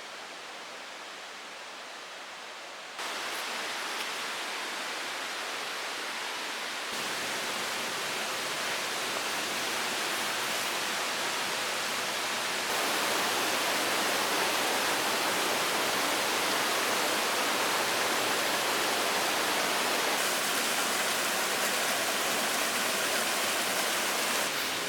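Steady rushing noise with no distinct events. It jumps up in level abruptly three times in the first half, then holds steady.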